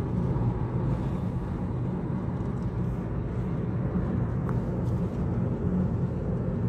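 Steady low rumble of a car's engine and tyres on asphalt, heard from inside the moving car's cabin.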